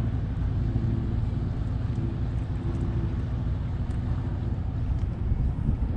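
Steady low drone of a motorboat engine running out on the harbor, mixed with a low rumble of wind on the microphone. The engine hum fades about halfway through.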